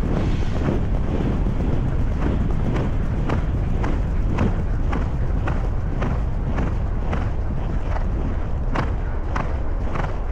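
Racehorse's hoofbeats on a sand track, about two a second, easing up after a trial race, heard from a camera worn by the jockey under steady wind noise on the microphone.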